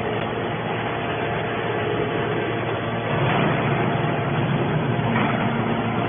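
Hydraulic scrap metal baler's power unit running, a steady machine hum with faint steady tones that grows a little louder about halfway through.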